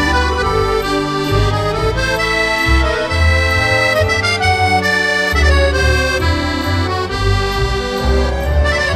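Background music led by an accordion melody over a bass line.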